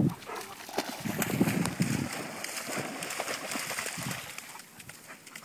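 A dog trotting through shallow surf on wet sand, with irregular paw thumps and splashes over the hiss of small waves washing in.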